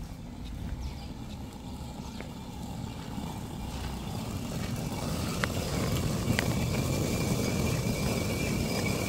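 Hand quern of two round millstones turned by a wooden handle, grinding wheat grain into flour: a continuous stone-on-stone grinding rumble that grows louder about halfway through, with a few sharp clicks.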